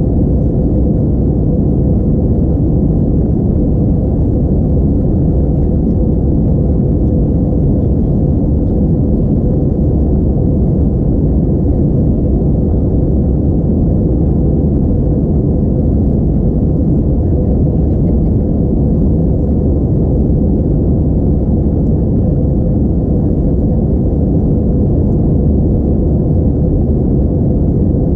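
Steady, loud in-flight cabin noise of an Airbus A321-231: the low, even rumble of its IAE V2500 turbofan engines and the rush of air over the fuselage, heard through the cabin wall, with a faint steady hum running through it.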